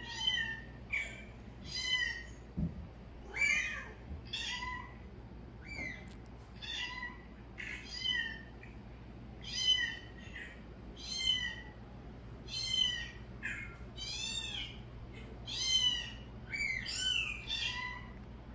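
High-pitched cat meows repeated over and over, one or two short rising-and-falling calls a second, all much alike, as from a recording of cat-calling sounds played through a phone's speaker. A single soft knock comes a few seconds in.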